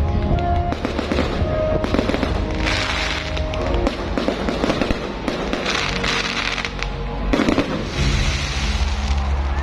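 Aerial fireworks crackling and bursting in repeated volleys, each a second or so long, over music playing throughout.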